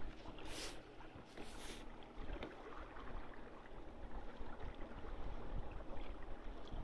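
Water washing and gurgling along a sailboat's hull as it moves under sail, over a low rumble of wind on the microphone. Two short hissing rushes come about half a second and a second and a half in.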